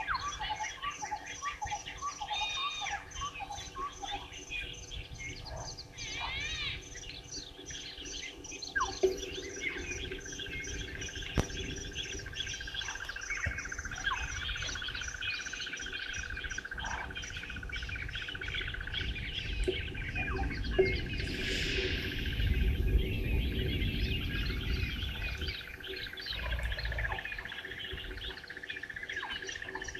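Several wild birds calling at once, with quick repeated chirps and trills overlapping, and a steady high-pitched note joining about a third of the way in. A low rumble swells briefly about two-thirds of the way through.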